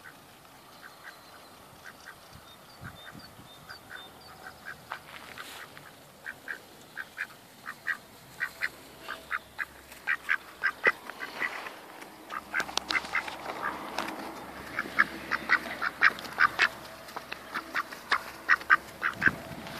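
Indian Runner drake calling in short repeated notes, a few a second, getting louder as it comes up close.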